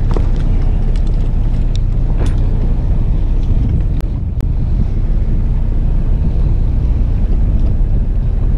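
Fishing boat's engine running steadily as a low rumble, with wind buffeting the microphone. Two sharp clicks come about four seconds in.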